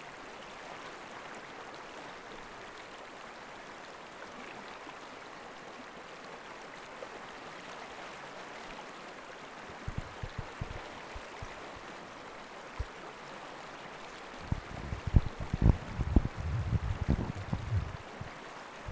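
Steady rushing of river rapids, the backing track under the video. There are a few low knocks about ten seconds in and a cluster of louder knocks and thumps over the last four seconds.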